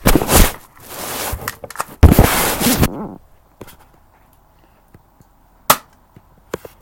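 P698 spring BB pistol being fired at a target: sharp shot cracks and clicks among two loud rushes of noise, one at the start and one from about two to three seconds in, then a single sharp crack near the end.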